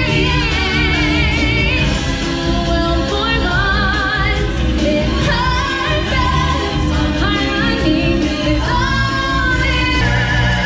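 Live stage-show singing: voices holding long notes with a strong vibrato, in phrases, over band music with a steady low accompaniment.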